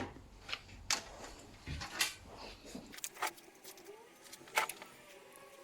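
Sharp clicks and light clatter of small parts being handled during an electric pressure cooker repair: about half a dozen separate knocks, the loudest right at the start. About three seconds in, the low background hum drops away.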